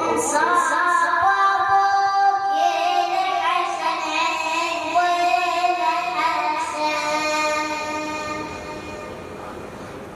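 A child's voice chanting a Shia lament (latmiya) in long held, wavering notes that slide from pitch to pitch, fading toward the end of the phrase.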